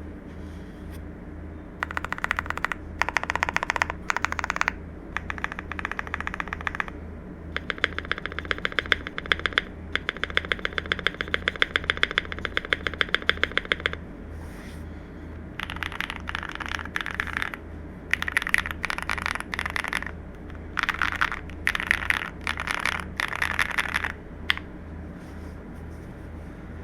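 Typing on a CIDOO V65 custom mechanical keyboard with lubed Akko CS Matcha switches, an FR4 plate and ABS doubleshot keycaps: runs of quick keystrokes broken by short pauses. The fastest, densest run falls in the middle, and the typing stops near the end.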